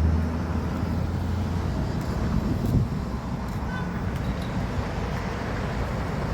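Outdoor traffic noise: a steady rush of road and vehicle sound, with a low engine hum that fades out after about a second and a half.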